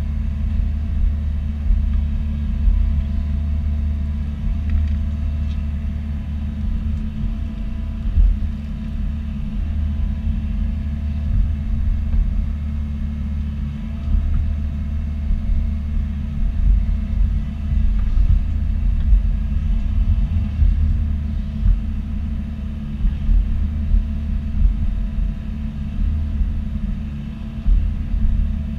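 Bobcat E42 mini excavator's diesel engine running steadily as it works, a low rumble that swells and eases as the hydraulics move soil to backfill a trench.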